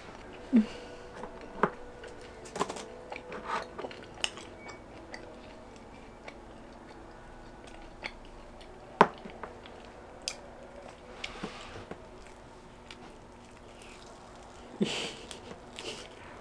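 Close-miked chewing and mouth sounds of someone eating fried pizza, with scattered small clicks and crackles as pieces of the crust are pulled apart by hand. A louder crunchy bite comes near the end.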